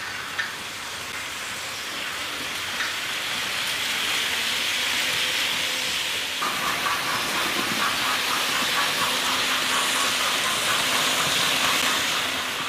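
Märklin H0 model trains running on the layout: a steady hiss of wheels rolling on the track that swells as a coach train passes close by. From about halfway in, a fast, light, even clicking joins it.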